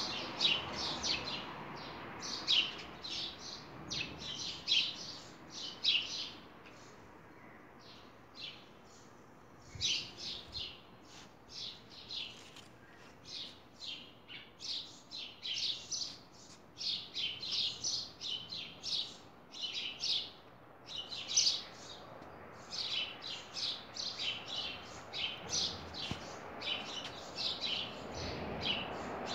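Small birds chirping, with rapid runs of short high chirps repeating throughout and a brief lull about a third of the way in.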